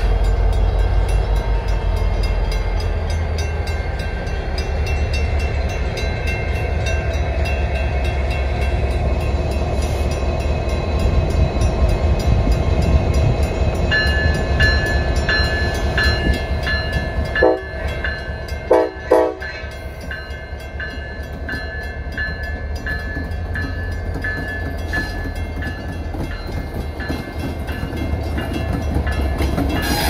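Two EMD SD60E diesel locomotives running slowly by with a steady low rumble. From about halfway, a crossing bell rings in even strokes. Just past the middle, the Nathan K5LA air horn gives three short blasts.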